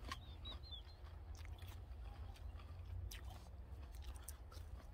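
Someone chewing a bite of crisp wild apple close to the microphone: soft, irregular crunches over a steady low rumble.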